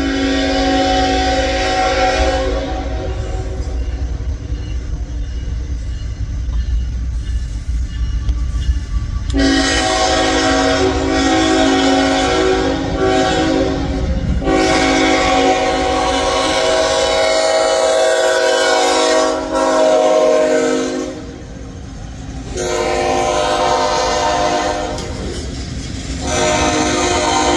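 Norfolk Southern diesel freight locomotive sounding its multi-note air horn in a series of long blasts for a grade crossing, over the low rumble of the train. Near the end the freight cars are rolling through the crossing.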